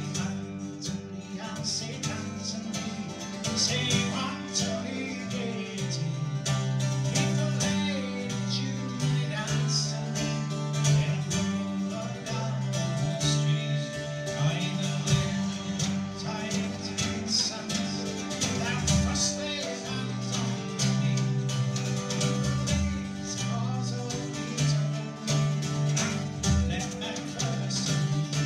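Celtic folk band playing live: fiddle and a wind instrument carrying the melody over bouzouki strumming, held low drone tones and a drum kit keeping a steady beat.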